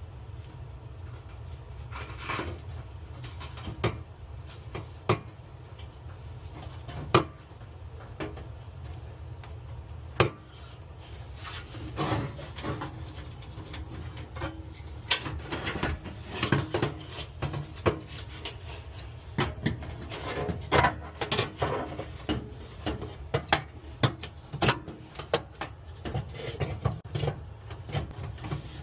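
Tools and sheet-metal parts of a gas range being handled and fitted: irregular clicks, taps and scraping, busier in the second half, over a steady low hum.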